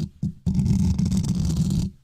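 Close-up ASMR scraping trigger: long scraping strokes, each about a second and a half, with short breaks between.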